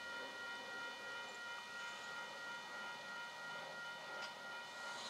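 Railroad grade-crossing warning bell ringing steadily while the crossing gates are down.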